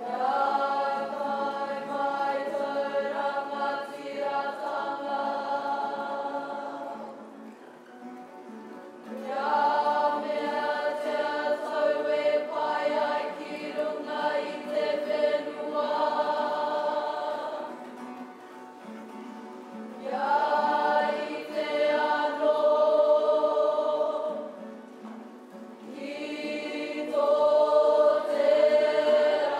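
Kapa haka group of mixed male and female voices singing together as a choir, in long held phrases separated by brief pauses.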